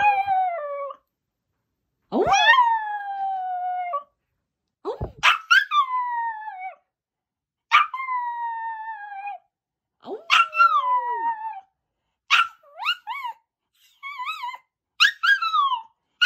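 White Pomeranian howling: a string of about eight drawn-out howls, each sliding down in pitch, the later ones shorter and wavering.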